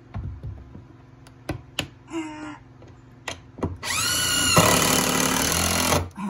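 Cordless drill driving a screw up through a wooden trim board: a short spin-up about two seconds in, then a longer run of about two seconds whose whine rises as the motor comes up to speed, stopping near the end. A few light taps come before.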